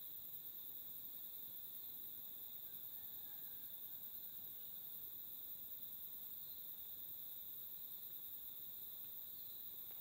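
Chorus of insects in the bush: a faint, steady, high-pitched buzzing drone with several pitches layered on top of each other.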